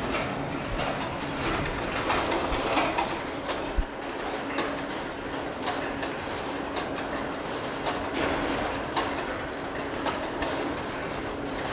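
Hiroshima Skyrail 200-series suspended car running round the station's turnaround loop, its overhead running gear clattering along the rail with irregular clicks and knocks over a steady mechanical hum. There is one sharp knock about four seconds in.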